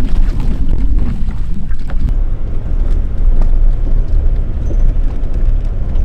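Wind buffeting the microphone: a steady, heavy low rumble with no break.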